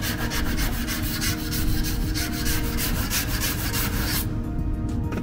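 Hand sanding block rubbed in quick back-and-forth strokes over the repaired rear quarter panel of a Honda Beat, a steady rasping rhythm that stops about four seconds in.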